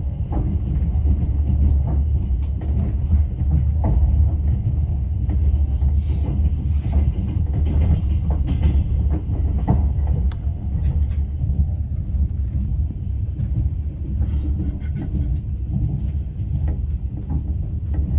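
Passenger train running, heard from inside a platzkart sleeper car: a steady low rumble of wheels on rails with scattered knocks and clatter, and a brief hiss about six seconds in.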